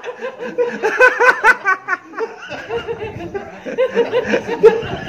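Several men laughing in two bouts of rapid 'ha-ha' pulses, with a short lull about two seconds in.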